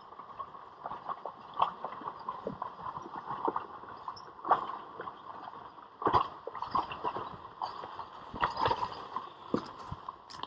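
A horse team and an iron-wheeled covered wagon crossing a shallow, stony creek: irregular knocks and splashes of hooves and wheels in the water, over a steady rush of water.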